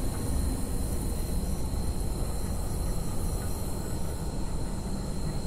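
A car coasting in neutral, heard from inside the cabin as a steady low rumble.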